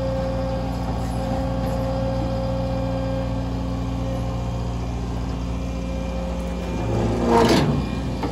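Excavator's diesel engine running steadily while it lowers a three-wheeled Cushman onto a steel dump trailer. About seven seconds in there is a louder burst of clatter as the load is set down.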